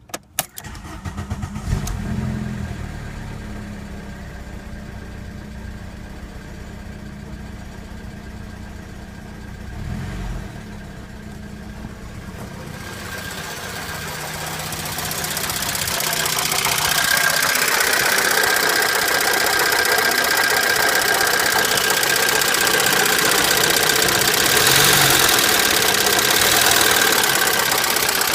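Volkswagen ABA 2.0-litre eight-valve four-cylinder engine starting and idling, with a brief rev about ten seconds in. From about thirteen seconds a ticking clatter grows louder and stays: hydraulic lifter tick on the first start after a new oil pump and PCV system were fitted.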